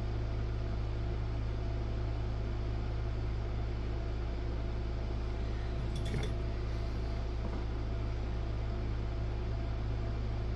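Steady low hum with an even hiss, and one faint click about six seconds in.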